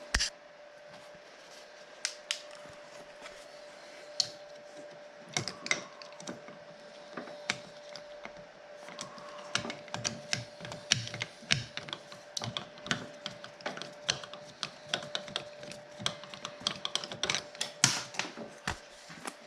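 Irregular small clicks and taps of a screwdriver working the screws and small parts of a snowmobile's plastic throttle block. The clicks are sparse at first and come thicker and quicker in the second half. A faint steady hum runs underneath.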